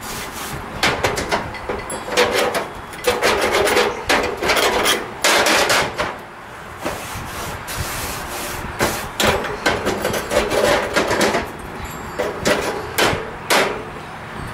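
Grill brush scraping and scrubbing the grates of a gas barbecue in quick, irregular strokes. There is a short lull a little past the middle.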